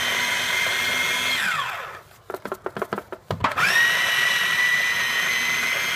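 Small electric food processor grinding garlic, oregano and salt into a paste: the motor runs with a steady whine, winds down about a second and a half in, and a few clicks and knocks follow. About three and a half seconds in it spins back up to full speed and keeps running.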